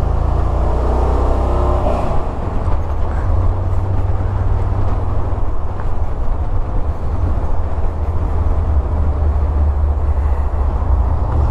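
1982 Jeep CJ7's 5.7-litre V8 running under way: a steady deep engine drone with road noise. A rising note over the first couple of seconds suggests it is picking up revs.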